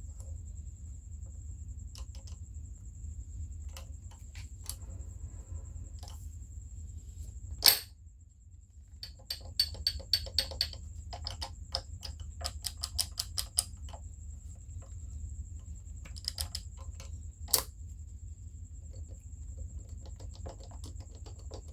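Metal clicks and light rattling of the parts of a disassembled Tremec TR6060 six-speed transmission as they are handled and moved by hand, over a steady low hum. Two sharper knocks stand out, one about eight seconds in and one near the end, and a quick run of clicks fills the middle.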